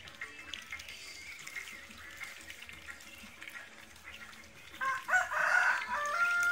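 A rooster crows once, starting near the end: a loud, stepped call that finishes on a long held note.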